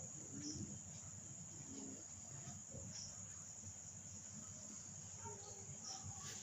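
Faint, steady high-pitched chirring of insects such as crickets.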